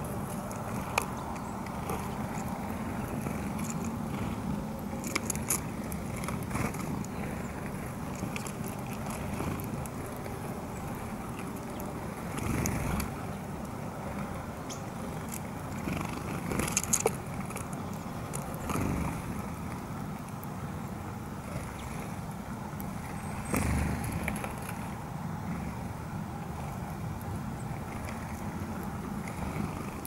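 Steady low rumble of outdoor background noise with short clicks and knocks scattered through it, a few of them louder.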